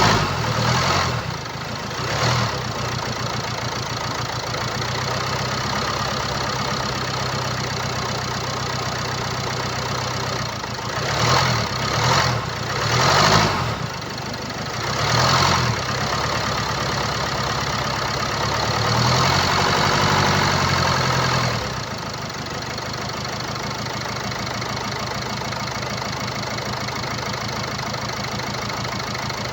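2017 Land Rover Discovery V's 2.0-litre four-cylinder TD4 diesel running at idle, blipped briefly near the start, three times in quick succession and once more around the middle, then revved for about two seconds before settling back to idle. The unusual engine noise comes from a stretched timing chain.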